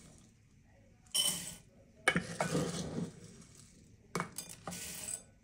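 Dry rolled oats scooped from a glass jar and tipped into a clear bowl: the scoop scrapes through the flakes and the oats rattle into the bowl in three separate bursts.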